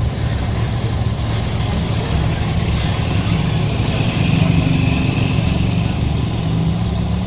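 An engine running steadily, a low, even rumble that holds its level throughout.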